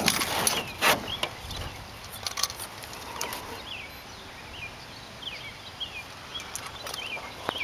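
A couple of sharp knocks in the first second, then birds chirping: short, quick falling chirps repeated every second or so over a faint steady outdoor background.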